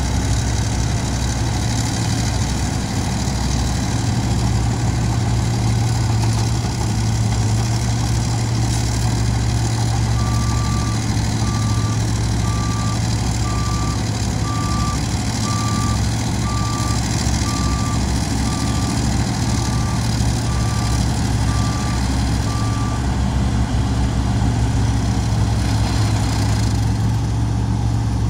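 Heavy diesel truck engine running steadily while a dump truck's hydraulic hoist raises its bed to tip a load of soil. From about a third of the way in, a reversing alarm beeps evenly, a little over once a second, for about thirteen seconds, then stops.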